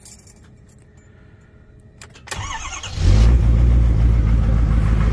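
Ford Super Duty pickup's turbo-diesel engine started cold at about 1 degree. After a click, the starter cranks briefly, and the engine catches about three seconds in and settles into a loud, steady idle.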